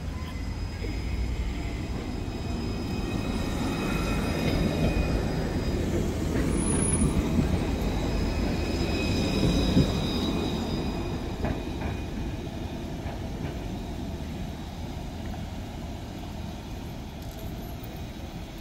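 Light-rail tram passing close by: wheels rumbling on the rails under a high electric motor whine. It swells to its loudest about ten seconds in, then fades away.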